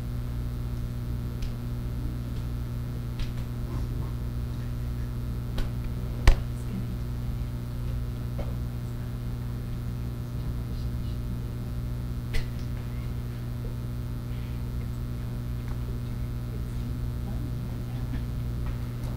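Scattered clicks and light knocks of a laptop being worked, keys and mouse, over a steady low room hum. The sharpest click comes about six seconds in and another about twelve seconds in.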